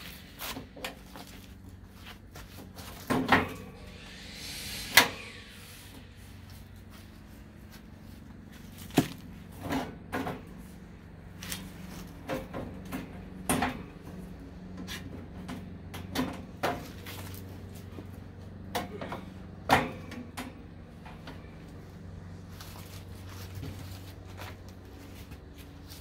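Irregular knocks, clicks and clatter of tools and parts being handled during hands-on repair work on an air-conditioner fan motor, over a faint steady low hum. The sharpest knocks come about 3, 5, 9 and 20 seconds in.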